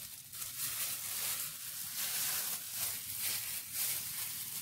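Soft, uneven plastic rustling from clear plastic food-prep gloves as raw bacon strips are picked up and laid over chicken, over a steady hiss.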